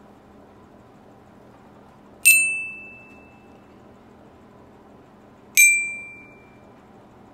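Student bell kit (glockenspiel) struck with a mallet: two single ringing notes about three seconds apart, each fading over about a second, the second slightly lower. A beginner picking out a melody one note at a time.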